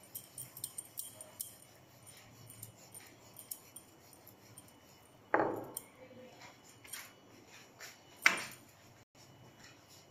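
Light clicks and taps of a wooden rolling pin and hands working paratha dough on a kitchen counter, with two louder knocks about five and eight seconds in.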